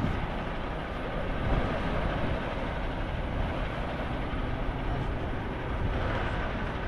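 Steady low rumble of a running motor vehicle.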